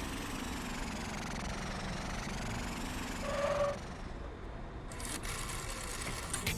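Cartoon vehicle engine sound effect running steadily, with a short high toot a little past three seconds in.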